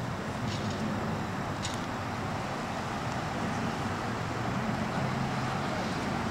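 Steady low engine hum with a constant background hiss, and a few faint ticks about half a second and under two seconds in.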